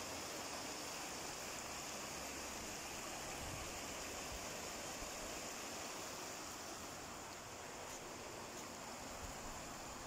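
Steady rushing hiss of running water, water spilling over a small weir into a river.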